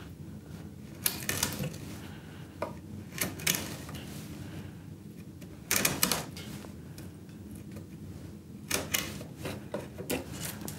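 Bench chisel paring wood by hand pressure, giving irregular sharp cracks and ticks in small clusters as chips split away along the grain; the loudest snaps come about six and nine seconds in.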